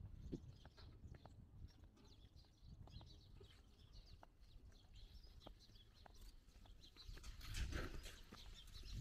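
Faint outdoor ambience while walking on a muddy dirt road: scattered soft footstep clicks over a low wind rumble, with a brief louder rustle about three-quarters of the way through.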